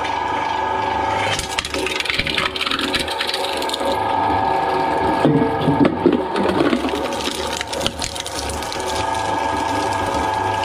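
Twin-shaft shredder running with a steady motor and gear hum while its cutters grab and crush a steel can, with metal clanking and crunching that is loudest about five to seven seconds in. It then runs on with only the hum as the cutters turn empty.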